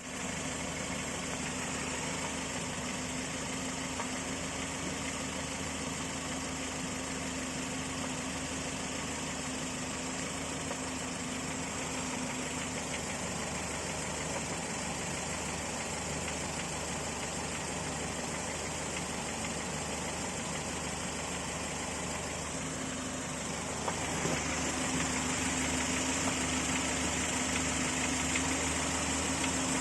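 Volvo 940 engine idling fully warmed up, with a knocking in its running that the owner suspects is piston slap. It gets a little louder about 24 seconds in.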